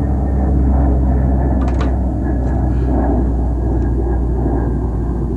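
Engines of off-road motorcycles running steadily, a continuous deep rumble with a few light clicks about two seconds in.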